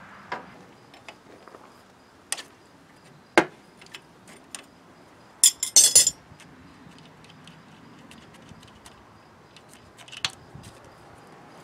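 Scattered metallic clicks and taps of hand tools and metal fittings as fuel lines are worked loose on an engine, with a sharp single clink about three and a half seconds in and a quick burst of bright clinks near the middle.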